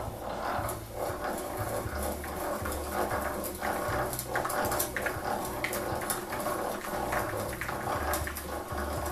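Millers Falls No. 12 breast drill being hand-cranked in its low gear, its gears whirring while an 11/16-inch auger bit cuts its way into pine, a pulsing grind with many small clicks.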